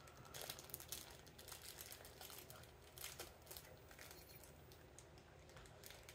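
Faint crinkling and rustling of product packaging being handled, with scattered small rustles and clicks.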